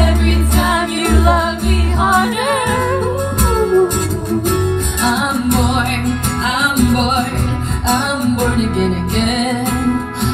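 Live pop song: a woman singing a wavering melody into a microphone over guitar and a deep, steady bass, recorded from among the audience.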